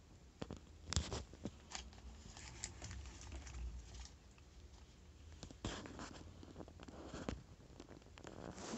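Faint handling noise: scattered clicks and short rustles, the loudest about a second in and again twice near the end.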